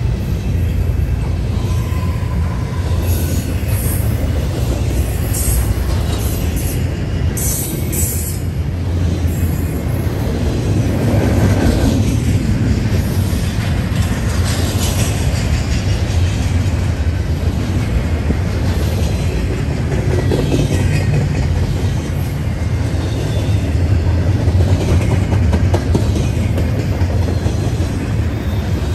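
Norfolk Southern freight train rolling past: a steady heavy rumble of freight-car wheels on the rails, with brief high-pitched wheel squeals in the first several seconds.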